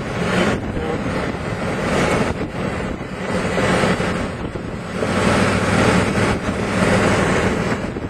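Strong wind blowing across the microphone, a loud rushing that surges and eases in gusts every second or two.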